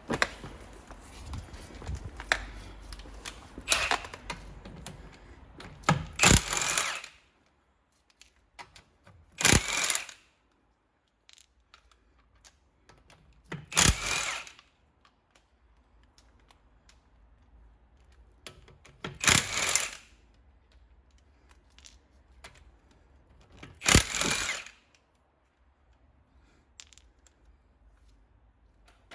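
Power tool run in five short bursts a few seconds apart on the car's wheel nuts, with clatter of tools being handled during the first few seconds.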